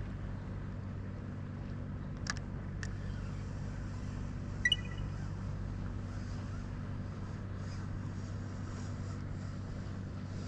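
A steady, low engine hum running throughout, with two sharp clicks a little over two seconds in and a short high chirp a little before the middle.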